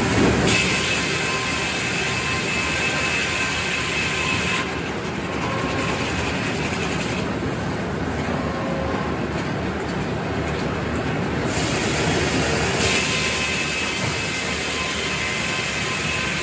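Circular sawmill running: large circular headsaw and log carriage working along the track, a steady loud mechanical noise. A high steady whine comes in twice for a few seconds each, early and again near the end.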